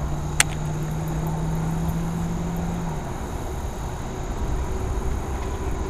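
Wind rumbling on the microphone, with a steady low hum that stops about three seconds in and a single sharp click about half a second in.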